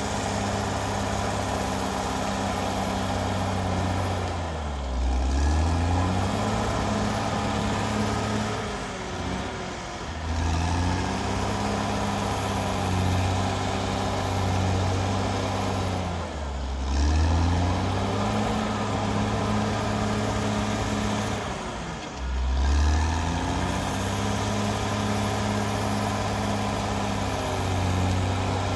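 Caterpillar D6R XL bulldozer's diesel engine running steadily, its revs dipping and climbing back four times as the machine works the blade in soil.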